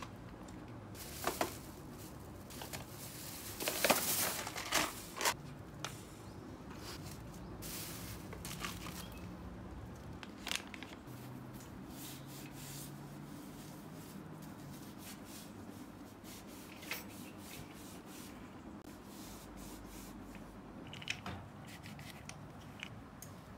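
Hand-cleaning noises on a black metal mesh storage cart: a cluster of loud tissue rustling and tearing about four seconds in, then scattered soft rubs and light clicks as the tissue wipes the metal frame.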